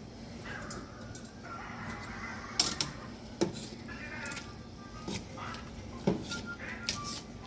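A domestic cat meowing several times, mixed with a few sharp clinks or knocks, the loudest about two and a half seconds in.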